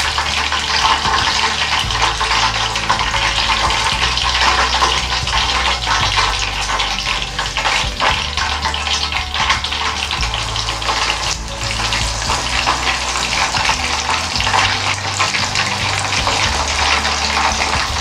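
Chicken pieces in a starch-and-flour coating deep-frying in a pot of hot oil: steady, dense sizzling and crackling during the second fry of karaage.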